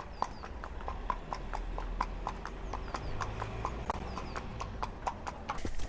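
Ponies' hooves clip-clopping at a walk on a tarmac road: an even, quick run of hoofbeats, about four or five a second.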